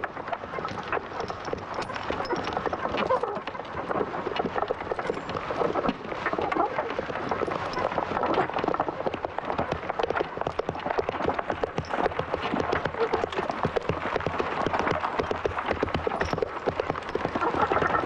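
Horse's hooves galloping: a fast, continuous clatter of hoofbeats.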